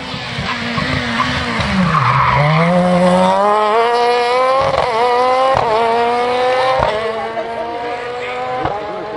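Ford Fiesta rally car engine at a corner: the revs fall sharply as it brakes about two seconds in, then it accelerates hard, the pitch climbing through several quick upshifts before it begins to fade away.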